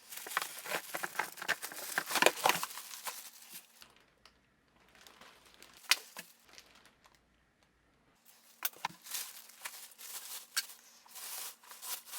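Packaging rustling and crinkling while the pressure washer's main unit is pulled out of its box. Busy crackling at first, a quieter stretch with a single sharp click around the middle, then more rustling near the end.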